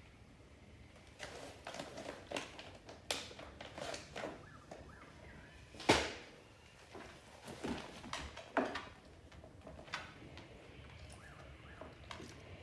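A dog eating treats and shifting about: irregular crunches, clicks and rustles, the loudest a sharp knock about six seconds in.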